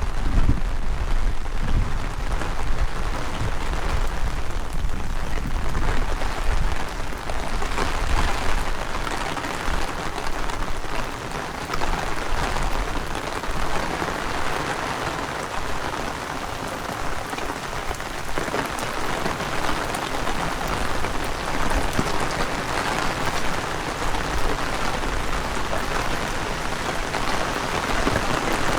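Heavy rain falling steadily on the street, a dense even hiss. Wind buffets the microphone with a low rumble for the first several seconds, then eases.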